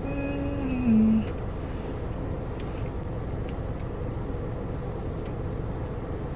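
Steady low rumble of a car on the move, heard from inside the cabin. In the first second a person gives a short hummed note that drops in pitch.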